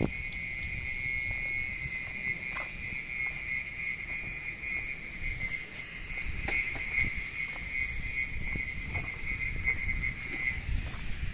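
Footsteps on a dirt lane with wind rumble on the microphone, under a steady high-pitched buzz that cuts off near the end.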